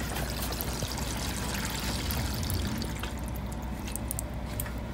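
Water pouring into a plastic whitewater kayak's hull from a pail, thinning out about three seconds in. Water trickles out around the poorly sealed drain plug housing.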